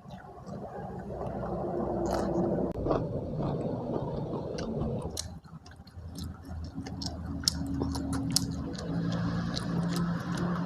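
Close-miked chewing of food, wet mouth sounds with irregular sharp clicks and smacks.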